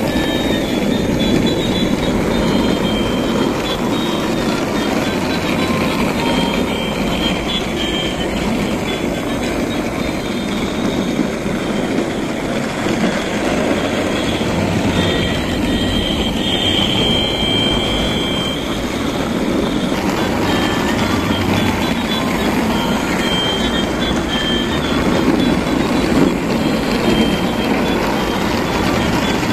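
Battery-powered plastic toy trains running on their plastic tracks: a steady whirring and rattling of small motors and wheels, with short high electronic beeps recurring now and then.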